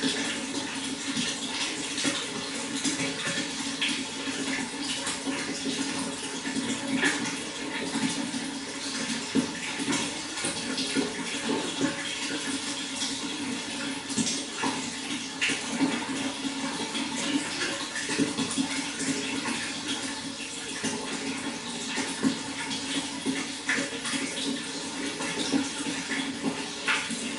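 Flowing water running steadily, with many small splashes throughout.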